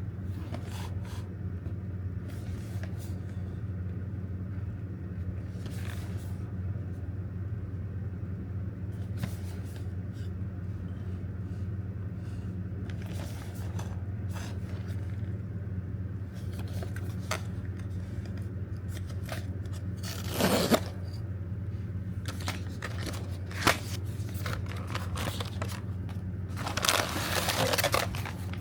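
Toy packaging being handled and opened: scattered scrapes and clicks, a louder rustle about twenty seconds in and a longer stretch of rustling near the end, over a steady low hum.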